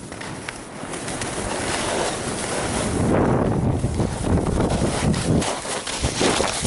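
Skis hissing and scraping over packed snow on a fast descent, with wind rushing over the microphone; the noise swells and eases as the skier turns.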